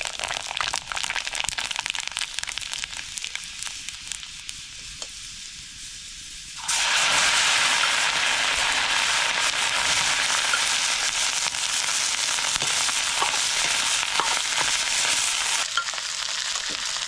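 Food frying in hot oil: a crackling sizzle that jumps suddenly louder and denser about seven seconds in, holds steady, then eases back a little near the end.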